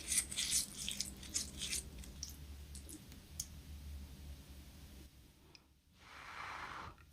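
Close-up clicking and crackling as food and utensils are handled at the start of a meal: a dense run of crackles in the first two seconds, then scattered clicks, and a soft hiss-like sound lasting about a second near the end.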